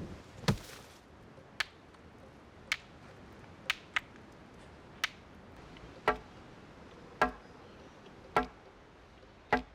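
A club striking a piece of wood in a steady rhythm, about one sharp wooden knock a second, about ten knocks in all.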